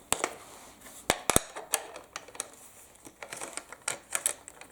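Steel bolt of a Mauser-action rifle being worked and wiggled in the receiver: irregular sharp metallic clicks and rattles, with a cluster of quicker clicks near the end. The play comes from the extractor collar ring that barely fits through the rear bridge.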